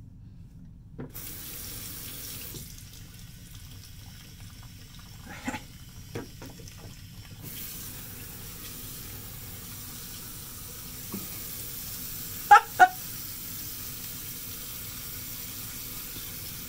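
Bathroom tap running into a sink, starting about a second in. A few small clatters sound in the middle, and two sharp knocks come close together later on.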